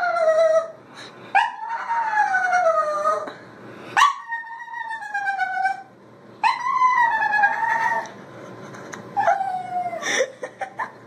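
Small wet dog howling: a string of about five long howls, each rising briefly and then sliding down in pitch, followed by a few short yelps near the end.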